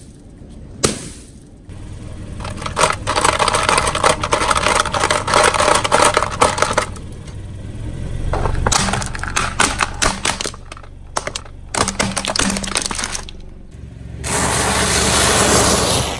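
Things being crushed under a car tyre: two sharp cracks near the start, then long runs of dense crackling and snapping as a plastic toy breaks, and a steady crunching hiss near the end as dry instant noodles are ground.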